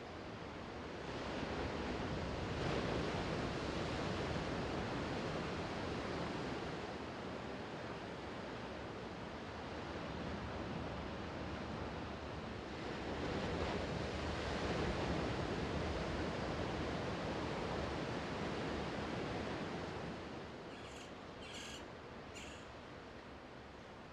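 Sea waves washing onto the shore and against rocks, swelling and ebbing twice. Near the end, three or four short high calls of seagulls.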